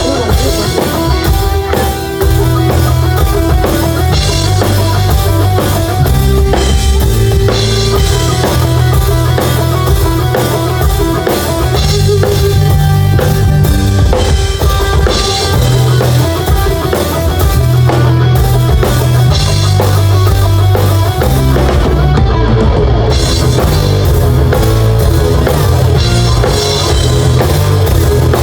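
Live band playing amplified rock-style music during a sound check: drum kit with kick and snare over a bass line, with guitar.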